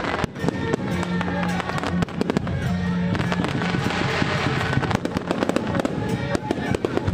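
Aerial fireworks going off in rapid, irregular cracks and bangs, with music playing underneath.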